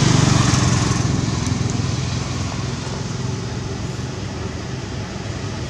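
A motor engine running as a steady low hum, loudest at the start and fading over the next few seconds as if passing by.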